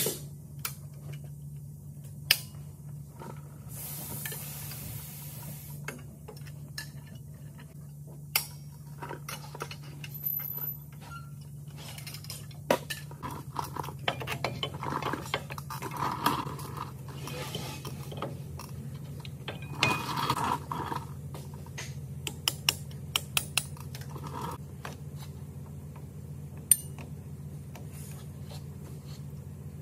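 Hand work on a semi truck's front drum brake: metal parts and hand tools clinking, tapping and knocking at irregular moments over a steady low hum, with a short hiss about four seconds in.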